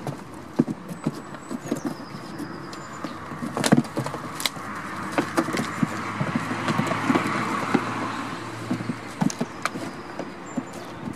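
Goats' hooves knocking and clattering on a plywood board as they jostle on it: irregular sharp knocks throughout. About halfway through, a broad rush of noise swells and fades over a few seconds.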